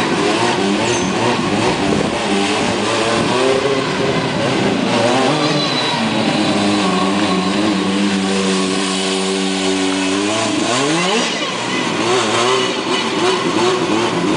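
Formula Student race car's engine revving up and down as the car is driven. About halfway it holds a steady pitch for a few seconds, then the revs fall sharply and it picks up again, wavering up and down.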